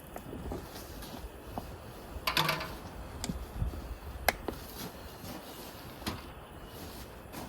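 Objects being handled: scattered clicks and knocks, loudest a short clatter about two and a half seconds in and a sharp click a little after four seconds.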